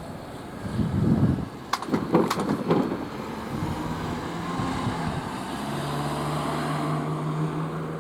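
A motor vehicle passing, with a few sharp knocks about two seconds in, followed by a steady engine hum.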